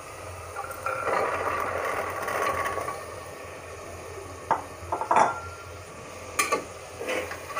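Soaked chickpeas are poured from a bowl into an aluminium pressure cooker of hot fried masala, a rough pouring noise lasting about two seconds. This is followed by a few sharp clinks and scrapes of a metal spatula against the cooker.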